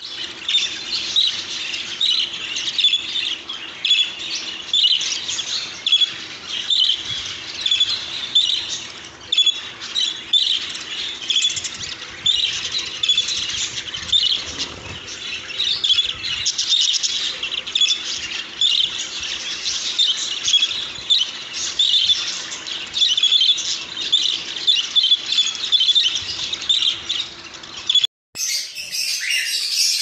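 Budgerigars chattering and warbling continuously: a dense, unbroken stream of quick chirps and squawky notes. Near the end it cuts out briefly and a different stretch of bird sound follows.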